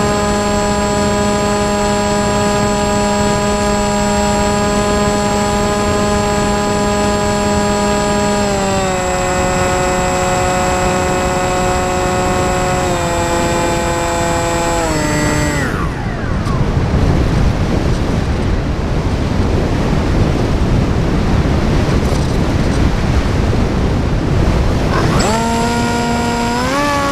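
Electric brushless outrunner motor (2200kv) spinning a 6x4 propeller on an RC flying wing: a steady whine that drops in pitch in steps as the throttle is eased back, then cuts out for several seconds, leaving rushing air noise while the wing glides. Near the end the throttle is pushed up and the whine comes back with a quick rise.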